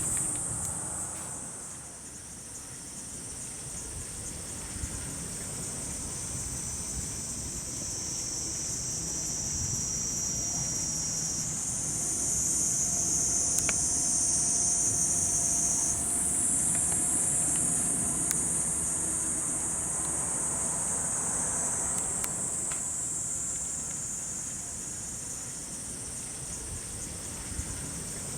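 A chorus of cicadas buzzing steadily at a high pitch, several insects overlapping, with a slightly lower-pitched one joining through the middle stretch. A low background rumble runs underneath.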